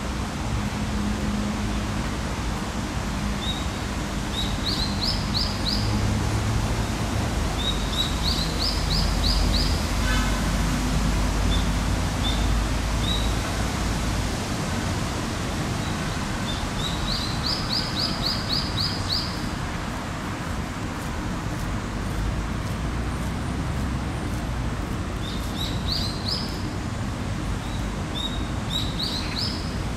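A small songbird sings short phrases of quick rising chirps, about five times, with a few single chirps between. Under it runs a steady low rumble of distant traffic.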